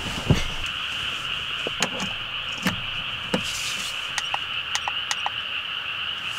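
A steady night chorus of calling animals, one constant high-pitched drone, with scattered light clicks and taps from handling the bedding and mat.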